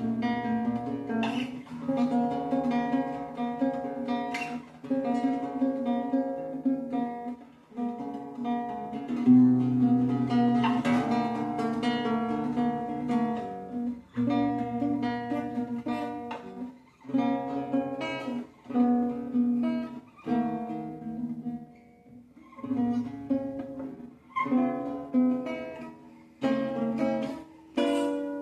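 Acoustic guitar music, strummed chords and plucked notes with short pauses between phrases.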